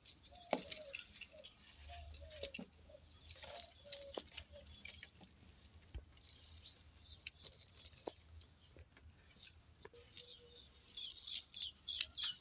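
Faint scattered clicks and taps of a small knife cutting soaked soya chunks into small pieces, with bits dropping into an aluminium pot. Small birds chirp in the background, more near the end.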